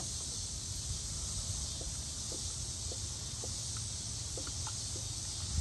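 Steady outdoor background: a high, even insect hiss over a low wind rumble, with a few faint soft ticks.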